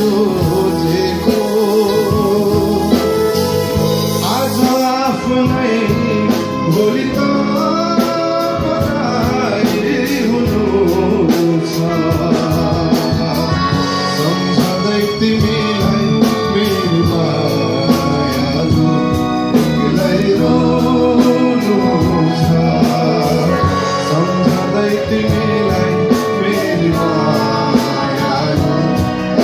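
Live band playing a Nepali song: a male singer sings into a handheld microphone over electric guitar and bass guitar, amplified through the PA.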